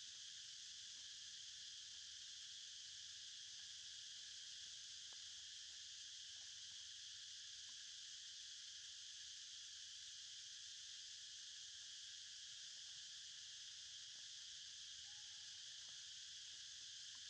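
Faint, steady chorus of insects, a high even drone.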